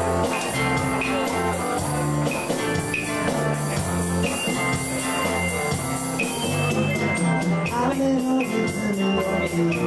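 Live band playing an instrumental passage in a rumba rhythm, with a repeating electric bass line under guitars and keyboard.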